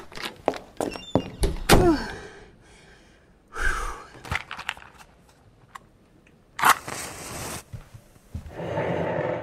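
Sound effects: a quick run of knocks and thuds, then a loud sound falling in pitch, followed by several rushing bursts of noise.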